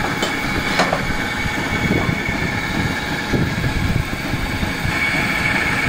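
Steady machinery drone with a high, even whine over an uneven low rumble, and a short sharp click just under a second in.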